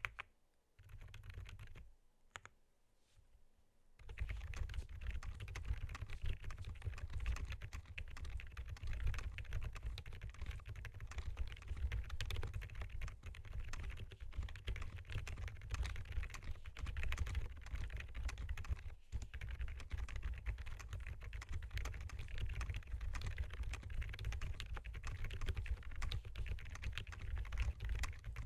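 Typing on a mechanical keyboard with Akko Penguin silent switches: muted, soft keystrokes. A few scattered presses at first, then fast, continuous typing about four seconds in, with a brief pause near the middle.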